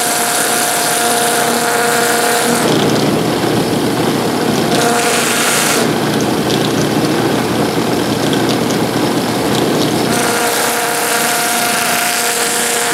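Motor-driven Sand-O-Flex flap sanding wheel spinning with a steady whine. From about two and a half seconds in until about ten seconds, wood is pressed against the abrasive strips, adding a rough scratchy sanding noise and muting the whine.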